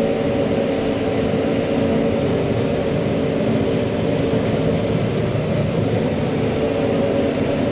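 John Deere 9500 combine running steadily under load while harvesting corn, a constant machine drone with a steady hum.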